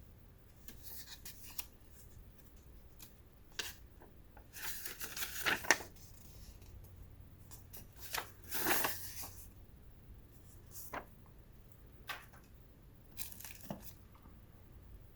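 Packaging being handled during an unboxing: two longer tearing, rustling rasps with scattered light clicks and taps between them.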